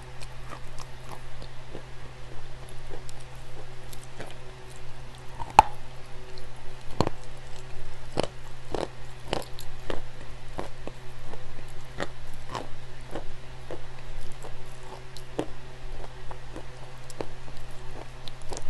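Clay crunching and cracking in irregular sharp snaps, some much louder than others, over a steady low hum.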